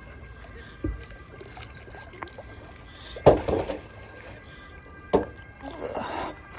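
A magnet with a long rusty iron rod stuck to it is hauled up by rope and breaks the surface of the river with a splash about halfway through. Water streams and drips off it as it is lifted clear. There is a dull thud early on and a sharp knock shortly after the splash.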